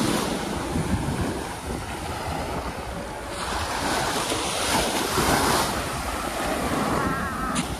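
Waves breaking and washing on a sandy beach, the surf swelling and ebbing, with wind rumbling on the microphone.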